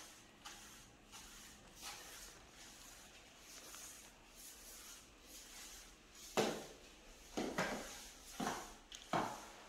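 Push broom with stiff plastic bristles sweeping a freshly grouted tile floor: repeated scratchy brushing strokes, faint at first, then louder strokes about a second apart in the last few seconds.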